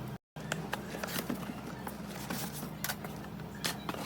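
Irregular light clicks and knocks of objects being handled, over a steady low hum. The sound drops out to dead silence for a moment just after the start.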